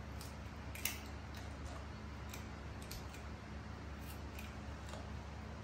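A young macaque chewing and gnawing grilled chicken: scattered sharp clicks and smacks, with one louder click about a second in, over a steady low hum.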